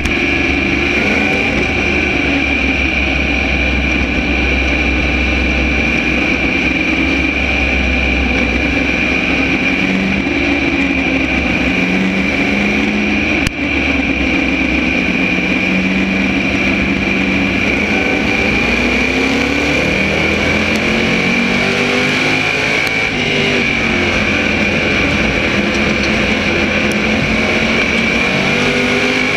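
SK Modified race car's V8 engine, recorded onboard, running in a pack of other modifieds with its pitch slowly rising and falling as the throttle changes. A steady high whine sits over the engine throughout.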